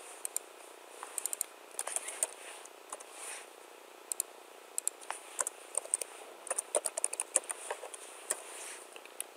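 Computer keyboard typing: irregular keystrokes in short bursts with pauses between them.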